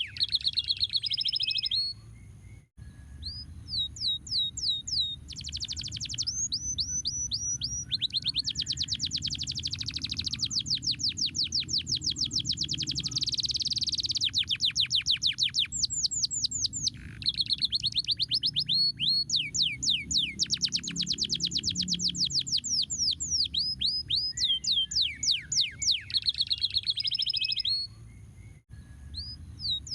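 Domestic canary singing a long song of trills: fast runs of repeated downward-sweeping chirps, some phrases slower and some rapid, near-continuous rolls, with a short pause near the start and another near the end.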